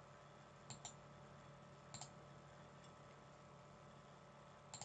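Near silence with a few faint computer-mouse clicks: a quick pair about three-quarters of a second in, one at about two seconds, and one near the end.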